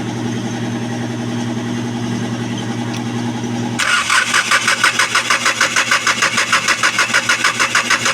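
A steady hum, then about four seconds in the starter motor starts cranking the D4CB common-rail diesel engine, pulsing evenly about five times a second without it catching: a crank-no-start, put down to an injector problem.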